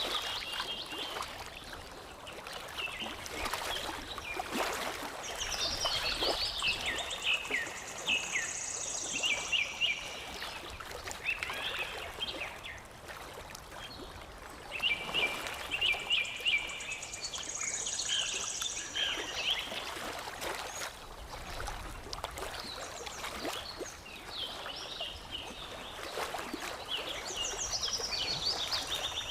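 Songbirds chirping and singing over lapping, trickling water. Phrases of quick high chirps and falling notes come every few seconds, and a high buzzy trill returns about every ten seconds.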